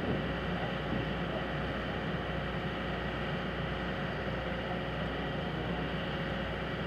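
Steady outdoor background noise with a low hum and a faint steady tone; no distinct sound stands out.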